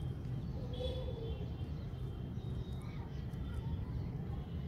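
Outdoor background: a steady low rumble with a few brief, faint high chirps.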